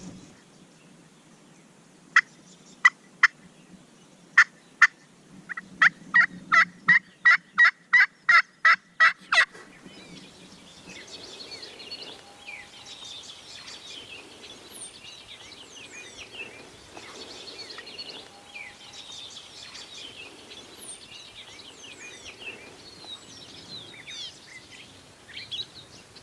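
Turkey call yelping: three loud yelps, then two, then an even run of about a dozen yelps at roughly three a second, imitating a hen to draw toms in. Afterwards songbirds chirp faintly.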